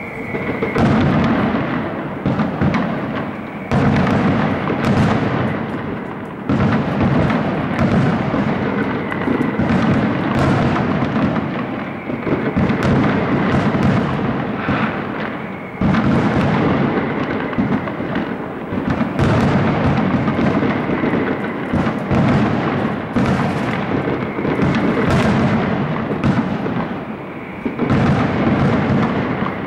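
Fireworks castillo: a rapid, unbroken string of aerial shell bursts and crackling reports, easing off for a moment four times before building again.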